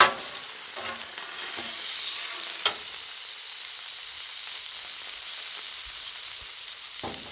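Chicken and onion frying in oil on a Blackstone flat-top griddle, giving a steady high sizzle. It is broken by a few sharp clicks, the loudest right at the start.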